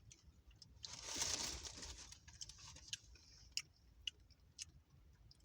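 Eating loaded tortilla chips: a crunchy bite about a second in, then scattered small chewing clicks.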